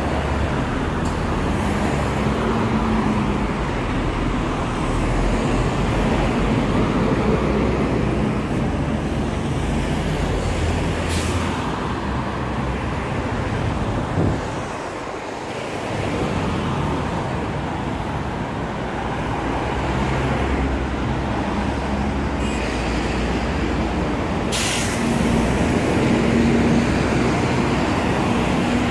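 Road traffic on a multi-lane city street: cars and buses passing in a steady rumble, with two short sharp hisses, one about a third of the way in and one near the end.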